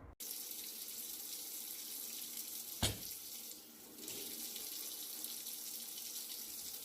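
Water running steadily from a kitchen tap into a sink, with one sharp knock about three seconds in.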